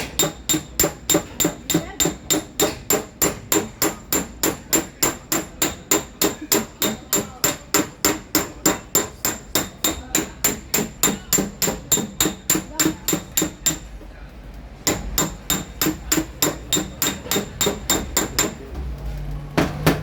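Hammer tapping the sheet metal of a car fender in a quick, even rhythm of about four light blows a second, each with a short metallic ring: dent work to level the panel without repainting. The tapping pauses for about a second, fourteen seconds in, then carries on.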